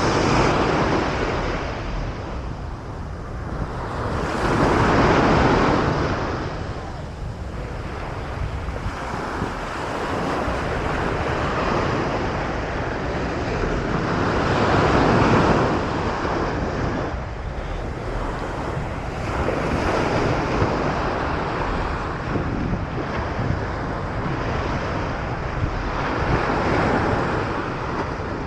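Ocean surf breaking and washing up the beach, swelling loud and falling back every few seconds. Wind buffets the microphone with a low rumble throughout.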